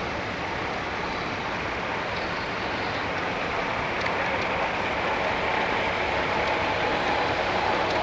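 Antique Empire tractor engine running steadily as the tractor drives past, growing slightly louder about halfway through.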